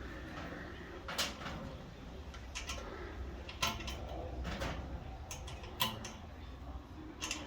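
Irregular light clicks and knocks of a hand tool and metal parts being worked inside a clothes dryer during reassembly, about eight of them spread over the few seconds, over a low steady hum.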